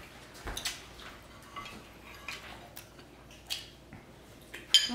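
Cutlery and dishes clinking during a meal: scattered light taps and clicks, with a sharper ringing clink near the end.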